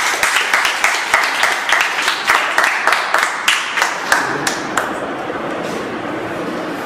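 A small audience clapping, the claps thinning out and stopping about five seconds in.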